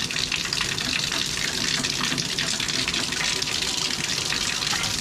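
Water running hard and steadily from a newly plumbed bathtub-and-shower fixture.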